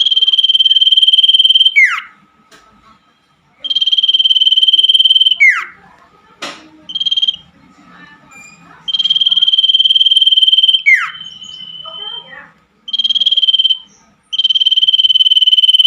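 Common iora (cipoh) calling: long, trilling high notes of about two seconds, each ending in a quick downward slide, repeated four to five times with pauses between. A sharp click comes about six seconds in, and a faint chorus of night insects or frogs fills the gaps.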